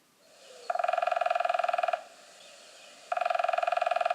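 Woodpecker drumming: two rapid drum rolls of a bill on resonant wood, each lasting just over a second, the second starting about a second after the first ends.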